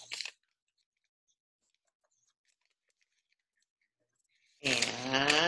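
Faint, scattered rustles and creases of a sheet of lined paper being folded and pressed by hand, near silence between them. A woman's voice briefly at the very start and again from near the end.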